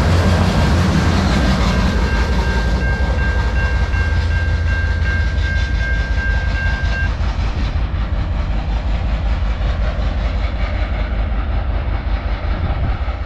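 Freight train cars rumbling and clacking past on the rails, with a level-crossing warning bell dinging steadily until it stops about seven seconds in. A lower rumble carries on afterwards.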